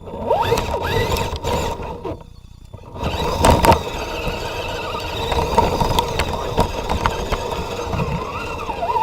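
A 1/10-scale RC 4x4 truck's electric motor and gears whining as it drives, with the pitch rising and falling with the throttle and with scattered knocks from the rough ground. The sound stops for about a second near two seconds in, then resumes.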